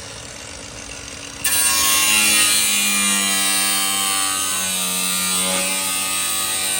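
A handheld power cutting tool starts abruptly about a second and a half in and runs steadily with a high hiss and a whine that wavers slightly in pitch, cutting into rusted car-body sheet metal and Bondo.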